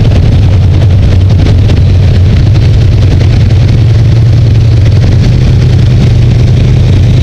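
Off-road vehicle engine running steadily, its pitch rising a little about halfway through.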